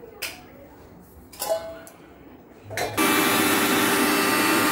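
A few light knocks and clicks, then, about three seconds in, a loud, steady electric motor whir starts abruptly.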